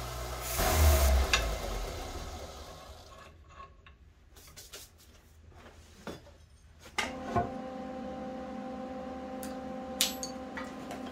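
Small bench belt sander grinding the end of a short steel pipe piece about a second in, the motor's hum then dying away as the sander runs down. A few light clicks of the pipe pieces being set down follow, and from about seven seconds a different steady machine hum, with a sharp tap near the end.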